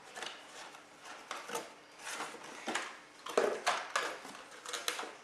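Hot Wheels cars in plastic blister cards being rustled and scraped as they are pulled from a cardboard case, with a few sharper clacks about three and a half seconds in as a card is set down on a wooden table.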